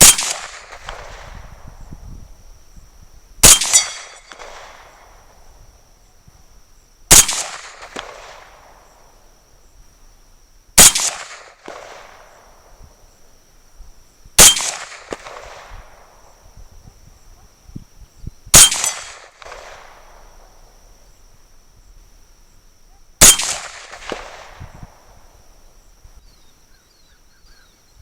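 M1 carbine firing .30 Carbine ball ammunition at a slow, steady pace: seven single shots about four seconds apart, each sharp report trailing off in echo. A steady high insect chirring continues underneath.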